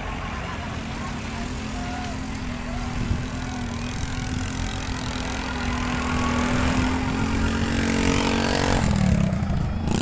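Bus engine running steadily under way, growing louder over the second half and shifting pitch about nine seconds in.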